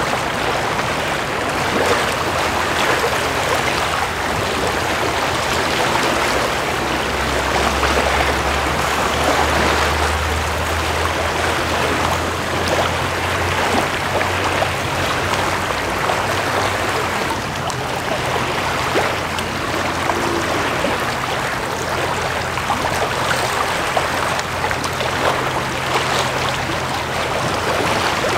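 Small waves lapping and splashing on the shore, a steady watery wash. Underneath runs a low, steady drone from a passing ship's engine, which swells for several seconds about a quarter of the way in.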